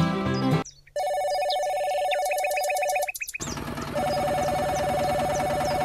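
Telephone ringing: two rings about two seconds long with a short pause between, each a steady two-note trilling ring. Guitar music cuts off just before the first ring.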